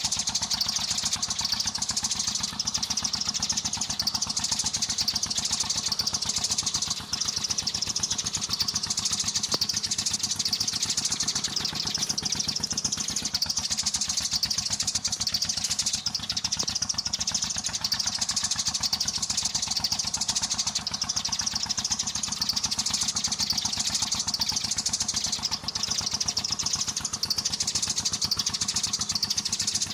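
A dense, continuous chorus of sparrows chirping, with a steady low hum underneath.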